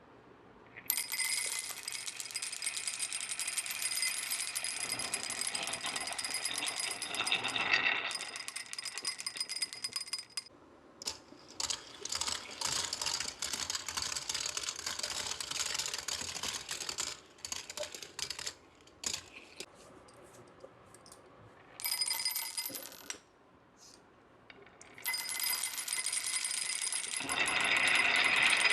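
Marbles rolling and clattering down a HABA marble run's track, a dense rattle of small hard knocks in several separate runs with short quiet gaps between them.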